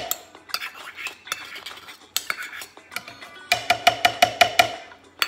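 A metal spoon tapped quickly against a bowl's rim to knock food off it, a run of ringing clinks about seven a second near the end, with lighter scraping and scooping sounds in between.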